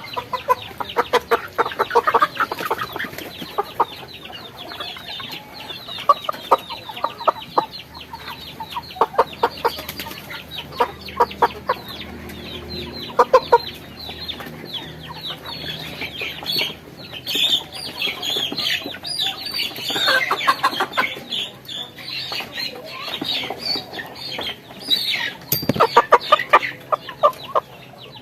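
Domestic chickens clucking and squawking, with many short calls in quick runs, as birds are caught and held for injection.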